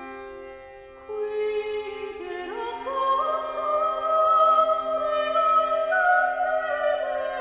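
Slow background music of long held notes over a steady drone, growing louder about a second in and stepping up in pitch around two and a half seconds in.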